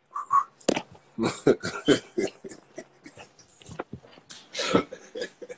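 A man laughing hard in short, irregular, breathy bursts.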